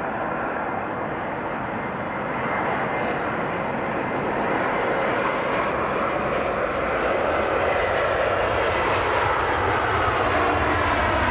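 Airliner's engines on approach, a steady rushing drone that grows gradually louder and brighter as the plane nears, taking on a sweeping, phasing sound near the end.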